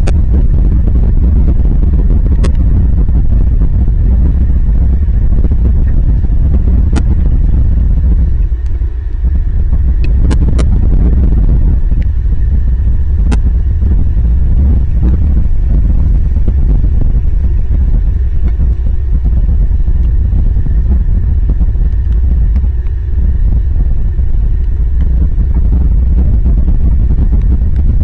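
Wind and heavy rain on an outdoor camera microphone: a steady, loud low rumble with a rain hiss over it, broken by a handful of sharp ticks a few seconds apart.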